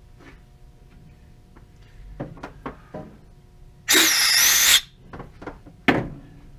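Small metal machine-shop parts being handled, with a few light clicks and knocks, then a loud hiss lasting about a second in the middle and a single sharp knock near the end.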